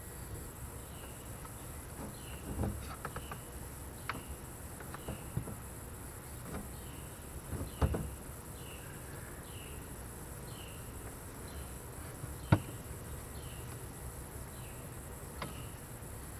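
Insects chirping steadily, short chirps about twice a second. Over them come a few sharp clicks and knocks as a flat-screen TV is handled and fitted onto its wall bracket, the loudest one late on.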